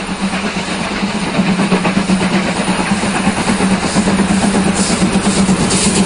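A train approaching, its running noise a continuous rumble with rapid clatter that grows somewhat louder, with bursts of high hiss near the end.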